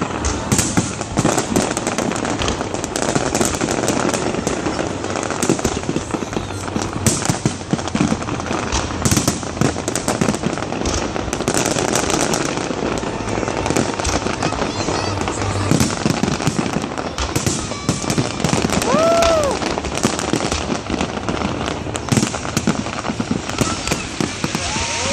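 Large fireworks display: a continuous barrage of shells bursting, with dense, overlapping bangs and crackling and no pause.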